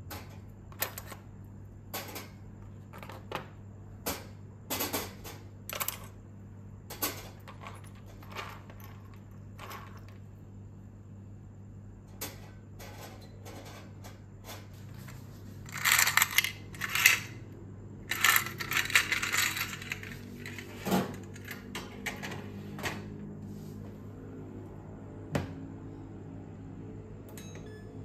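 Steel nail nippers and cuticle pushers clinking one at a time onto a stainless wire rack, with a burst of denser clattering about halfway through. A couple of single knocks follow, over a steady low hum.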